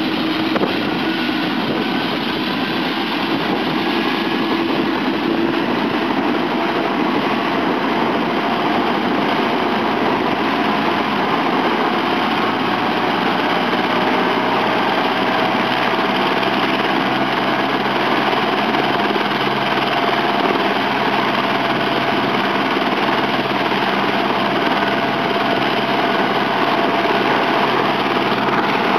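Eurocopter AS350 B2 helicopter's Turbomeca Arriel turboshaft running on the ground with the main rotor turning slowly. A turbine whine climbs gradually in pitch as the engine and rotor spool up, and a low hum strengthens about halfway through.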